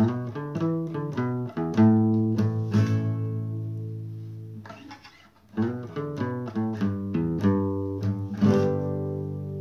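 Acoustic guitar fingerpicked, with no singing: a quick run of plucked notes ringing over low bass notes. The notes fade out about five seconds in, then the picking starts again.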